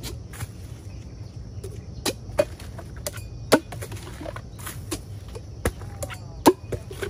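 A knife chopping into a freshly harvested bamboo shoot: several sharp, separate cuts at uneven intervals, the loudest about halfway through and near the end, over a steady low hum.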